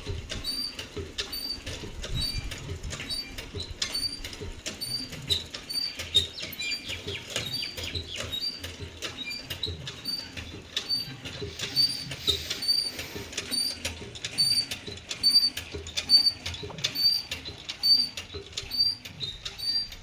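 A small bird chirping in short, high notes repeated about three times every two seconds, over soft rustling and tapping.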